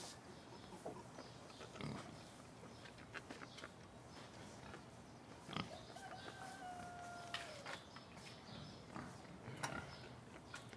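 Domestic pig grunting faintly, with scattered soft rustles and steps on hay. One drawn-out, slightly falling squeal comes a little past the middle.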